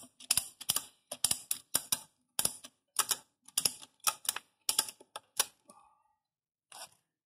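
Ratchet strap being tightened: the handle is cranked, its pawl clicking in quick pairs about every half second. The clicking stops about five and a half seconds in, once the strap is tensioned.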